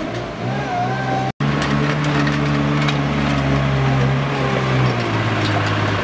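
Compact farm loader's engine running steadily as the machine drives across the yard, with a brief dropout in the sound about a second in.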